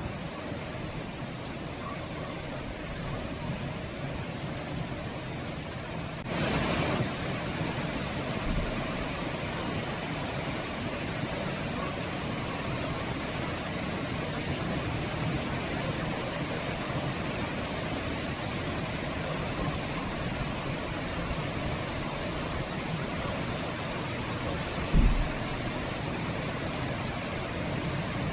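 Steady rain falling. About six seconds in there is a brief louder rush, and near the end a single short low thump.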